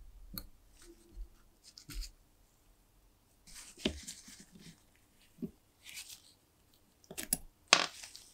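Hand tools working rusted screws on an old cast light housing: pliers and a screwdriver clicking and scraping against metal in a series of short, irregular scrapes and clicks, the sharpest near the end.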